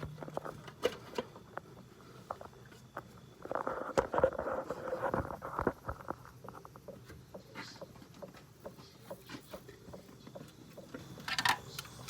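Hands working on a car's distributor cap and ignition wires: scattered light plastic clicks and taps, with a couple of seconds of denser rustling and scraping a few seconds in.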